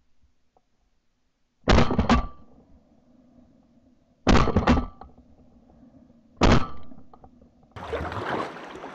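Shotgun shots in three quick volleys: a cluster of two or three about two seconds in, another cluster about four and a half seconds in, and a single shot about six and a half seconds in, each dying away quickly. Near the end, a steady wash of moving water around a kayak.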